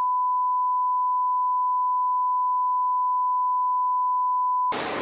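Steady single-pitch line-up test tone accompanying colour bars, cutting off suddenly just before the end into a loud even rush of noise.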